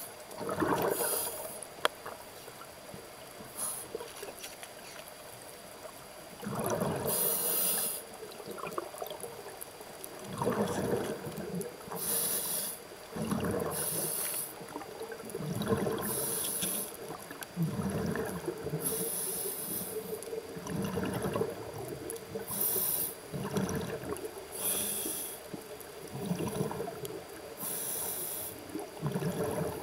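Scuba diver breathing through a regulator underwater: a short hiss on each inhale, then a longer low burble of exhaled bubbles, repeating every few seconds.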